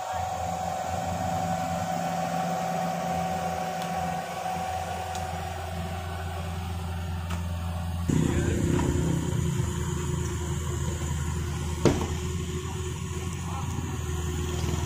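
Diesel engine of a Cat mini excavator running steadily as it works, setting concrete drainage segments; the engine sound gets louder about eight seconds in, and a single sharp knock comes near the end.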